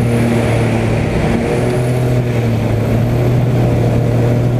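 Extra 300 aerobatic plane's Lycoming six-cylinder engine and propeller droning steadily in flight, with a brief wobble in the tone about a second in.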